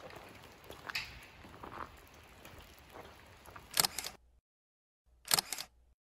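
Quiet footsteps on a gravel forest path with light scuffs and rustles. Two short, louder crunches come about four and five seconds in, each cut off abruptly by dead silence.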